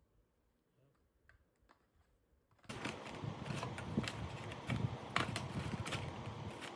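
A few faint clicks, then from about two and a half seconds in a sudden, much louder run of rustling and sharp clicking as unboxed packaging and accessories are handled.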